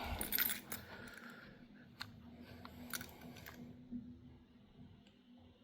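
Handling noise with a few sharp small clicks about a second apart, over a faint steady low hum.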